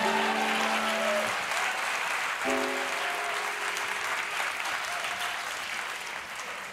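Studio audience applauding, the applause slowly fading toward the end, while a band plays two short held chords, one at the start and another about two and a half seconds in.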